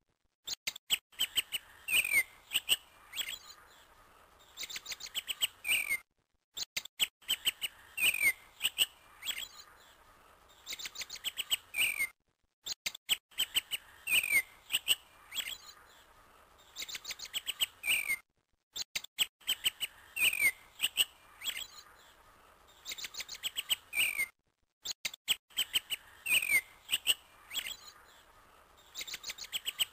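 Small birds chirping and trilling, short calls falling in pitch among quick rattling trills. The same few-second recording plays over and over, about every six seconds, with a brief dead silence between repeats.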